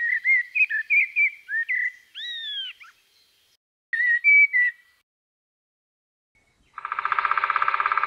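Common blackbird singing: a phrase of short fluting whistled notes ending in a higher arched note, then a second short phrase about four seconds in. Near the end a rapid, even rattle starts and runs on.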